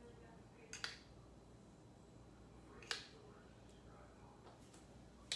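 Near silence with two faint, sharp clicks, one about a second in and one about three seconds in.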